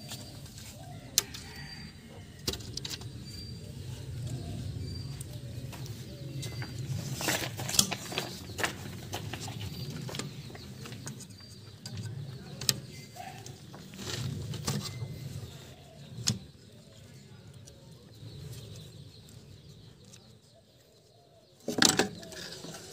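Scattered metal clicks and knocks from hands working the wire spring clamps on a tractor's oil-bath air cleaner, with a louder short clatter near the end as a clamp is unhooked.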